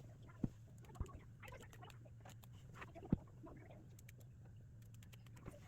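Faint, irregular small ticks and snips of seam threads being cut with a razor blade, with three soft knocks about half a second, one second and three seconds in, over a low steady hum.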